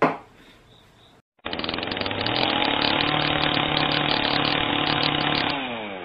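A small engine running at steady high revs, like a chainsaw, starting about a second and a half in. Its pitch drops just before it cuts off near the end. A single sharp knock comes at the very start.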